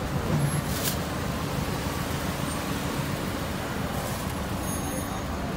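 Steady street traffic noise from cars driving past close by, with two brief clicks, about a second in and about four seconds in.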